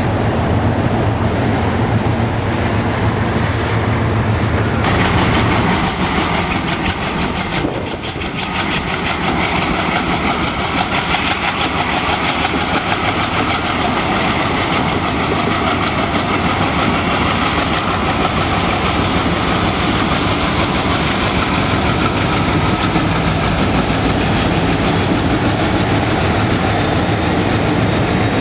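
A long freight train of autorack cars rolls past with steel wheels clacking over rail joints. About eight seconds in, the sound gives way to Alco C636 diesel locomotives passing close under power, their engines running loud over the wheel noise.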